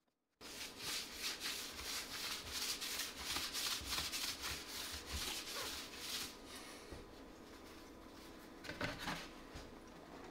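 Cloth wiping back and forth on a laminate countertop, damp with isopropyl alcohol to lift off excess epoxy: quick rubbing strokes, about three a second, that stop about six seconds in. A brief louder noise follows near the end.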